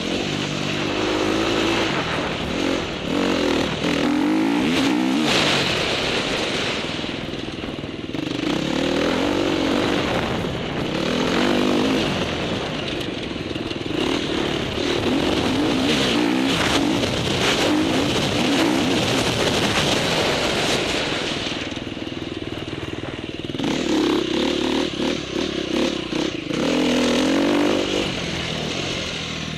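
Motocross dirt bike engine heard from the bike being ridden, revving up and falling back over and over as the rider works the throttle through jumps and turns, with a steady rushing noise underneath.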